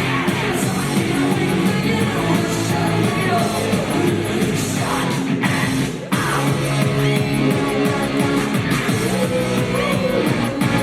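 Loud rock music with a singing voice and guitar, with a brief break about six seconds in.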